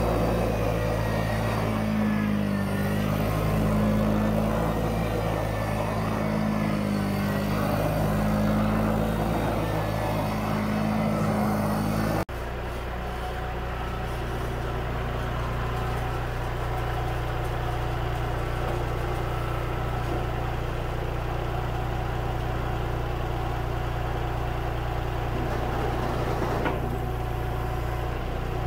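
Vehicle engine running steadily. About twelve seconds in, the sound cuts abruptly to a second, steadier engine note with less of the mid and upper pitch.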